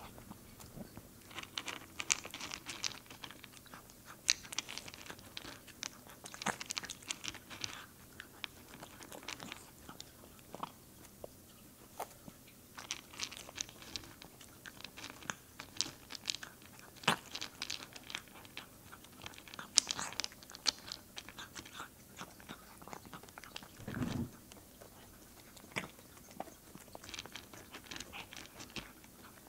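A silver tabby cat crunching dry kibble from a plate, in spells of rapid, sharp crunches with short pauses between them.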